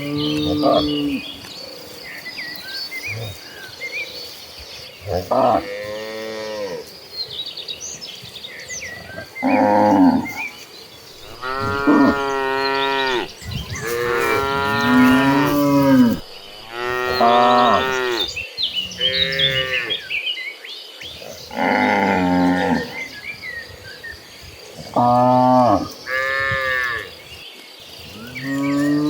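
Herd of cattle mooing, about a dozen calls one after another, each lasting one to two seconds. Several overlap in the middle.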